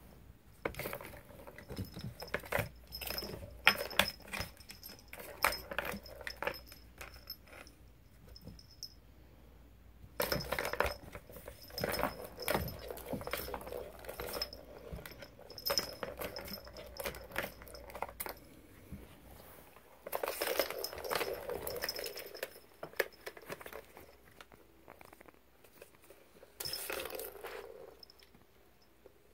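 Plastic balls rolling and clattering around the circular tracks of a three-tier cat track toy as a cat bats at them: runs of rapid rattling clicks in several bursts with short pauses between.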